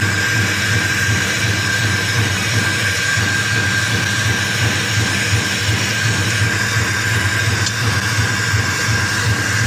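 Brazing torch flame burning with a steady hiss while it heats a brazed copper pipe joint on a refrigeration compressor to melt the joint and free the pipe. A constant high whistle and a low hum run under it.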